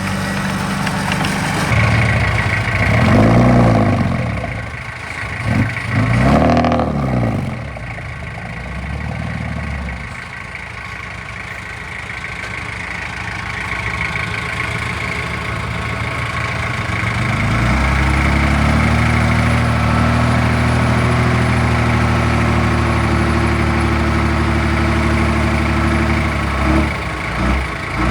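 Diesel engine of heavy earthmoving machinery running. It revs up and down twice in the first several seconds, eases off, then holds a louder, steady note through the last third.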